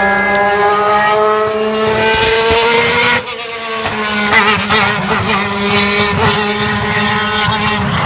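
Formula 1 car engine at high revs, its pitch climbing steadily for about three seconds. Then pitch and level drop suddenly, and the engine runs on with a wavering pitch.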